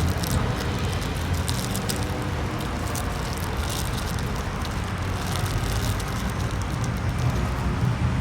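Steady low motor-vehicle rumble, with scattered light crackles over it, most of them in the first few seconds.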